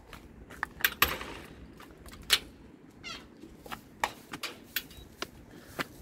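A metal mesh garden gate being unlocked with a key and pushed open: sharp metallic clicks and clanks of the lock and latch, with a brief creak about three seconds in, then a run of lighter clicks and taps.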